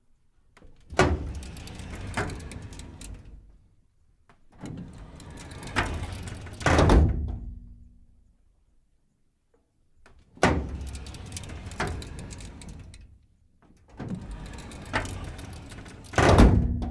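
Heavy metal filing cabinet drawer sliding on its runners four times, each run a few seconds of rolling, scraping noise starting with a clunk. The second and fourth runs end in a loud bang with a short metallic ring, the drawer being slammed shut.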